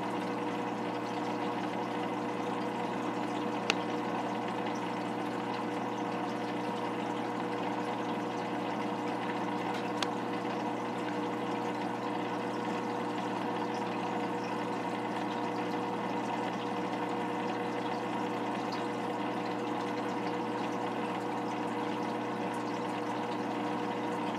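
Aquarium filter running: a steady hum with water noise. Two short clicks break through, about 4 seconds in and again about 10 seconds in.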